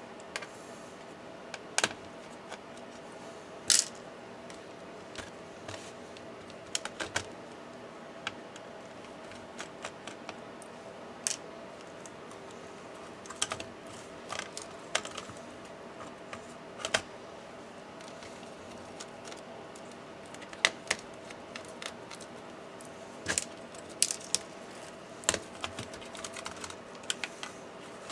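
Irregular light clicks and taps of hands and a small screwdriver working an MSI GP63 Leopard 8RD laptop's motherboard and plastic chassis apart, over a steady faint hum.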